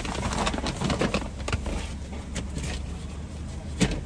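Brown paper takeout bag rustling and crinkling as it is handled and taken in through a car window, over the low steady hum of the idling car. A single sharp knock near the end.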